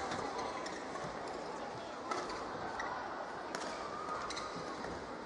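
Badminton rackets striking a shuttlecock back and forth in a doubles rally: several sharp hits, spaced about half a second to a second apart, over the steady background noise of a large hall.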